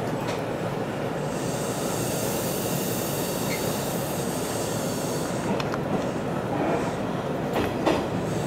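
Hanshin 1000 series electric train heard from inside the driver's cab as it pulls out of the station over junction points. It makes a steady running noise with a high hiss for the first few seconds, then several sharp wheel clicks over the points and rail joints near the end.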